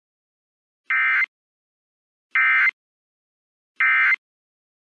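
Emergency Alert System end-of-message (EOM) signal: three short bursts of buzzy SAME digital data tones, about a second and a half apart, marking the close of the alert broadcast.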